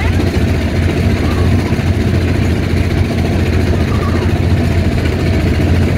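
A motorboat's engine running steadily, heard from on board the boat, with a steady low drone.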